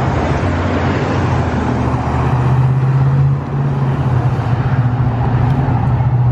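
City bus engine running close by, a steady low hum over street traffic noise, dipping briefly about halfway through.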